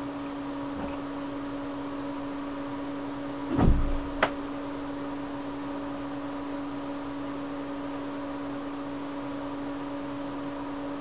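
Steady machine hum with one low tone, unchanging throughout. About three and a half seconds in there is a short muffled thump, and a sharp click follows half a second later.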